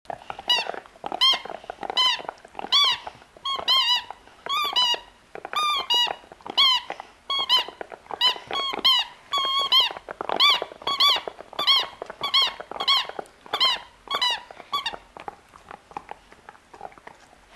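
A spiky rubber squeaky ball squeaking again and again as a dog chews on it, about two squeaks a second. Each squeak is a short squeal that rises and falls in pitch. The squeaking stops about fifteen seconds in.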